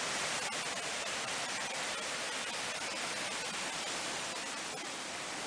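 Steady rain, a hiss of falling water with many small drop ticks scattered through it.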